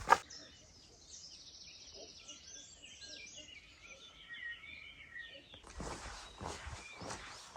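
Small birds chirping and singing in short phrases over a quiet background. About five and a half seconds in, footsteps on the ground take over.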